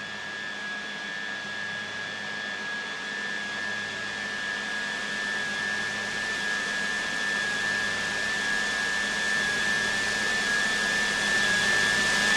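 Steady rushing noise with a thin, high held tone, slowly growing louder.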